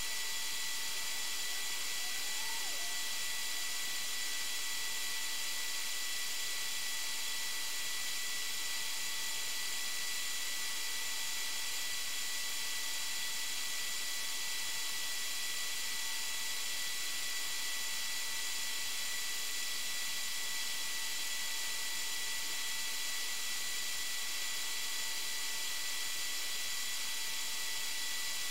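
Steady electronic hiss with a faint constant high whine: the recording's own background noise, with no distinct event.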